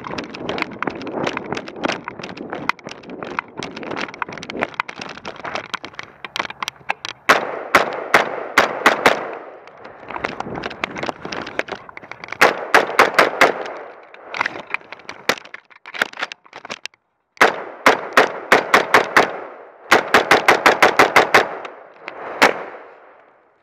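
AR-15 rifle firing rapid semi-automatic strings of shots, about six a second, in five or six bursts with short pauses between them, heard loud and close from a camera mounted on the gun. The first several seconds before the shooting hold rustling and wind noise as the rifle is carried.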